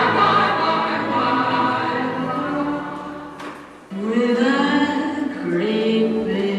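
Recorded show-tune singing by several voices in harmony. The phrase dies away about three seconds in, with a single sharp tap, and a new sung phrase comes in abruptly about four seconds in.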